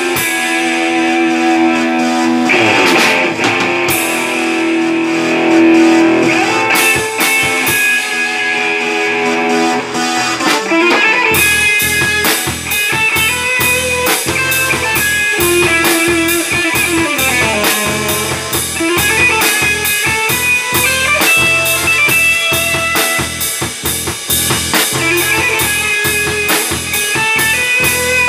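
A guitar-led instrumental rock piece. It opens with held guitar and keyboard notes; about eleven seconds in, drums and bass come in with a steady beat.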